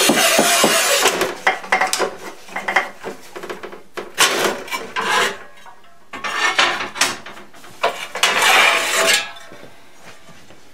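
Manual tile cutter scoring a ceramic tile: the scoring wheel rasps along the glazed surface, with clinks and knocks of tile and cutter between the scrapes. There are two longer scrapes, one at the start and one about eight seconds in.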